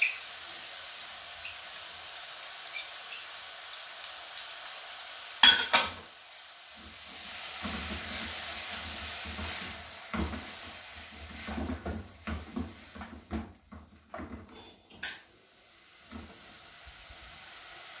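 Diced ham, carrot and green pepper sizzling in oil in a stainless steel pan, with a loud clatter about five and a half seconds in. It is followed by repeated scraping knocks of stirring against the pan.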